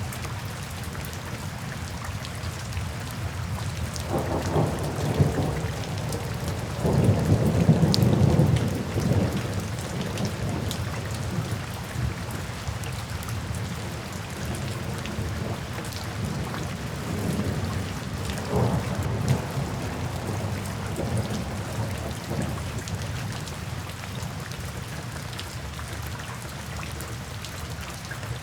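Steady rain falling with rolling thunder: a long low rumble builds from about four seconds in and is loudest around eight seconds, and a second, softer rumble comes near the twenty-second mark.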